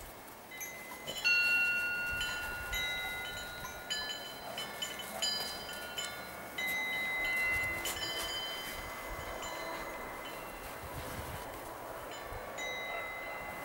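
Chimes ringing at several different pitches, struck at irregular moments, each tone ringing on and overlapping the others, the way wind chimes sound.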